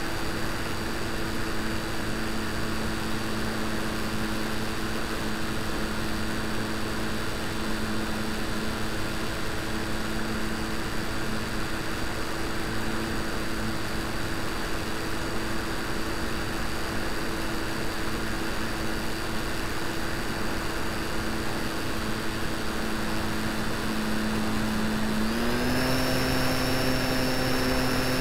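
Model Tiger Moth biplane's motor and propeller heard from on board in flight: a steady drone with a thin high whine over a rushing noise. About 25 seconds in the pitch steps up and it gets a little louder as the motor speeds up.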